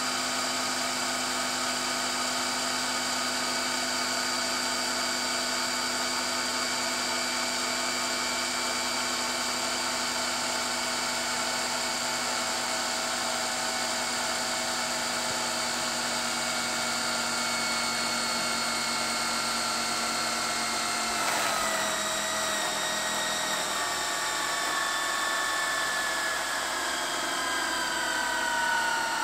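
Philips VR550 VHS recorder fast-winding a TDK E300 tape with the tape unlaced: a steady whirring whine from the transport motor and spinning reels, its pitch slowly falling. A brief click about two-thirds of the way through, after which the pitch drops faster.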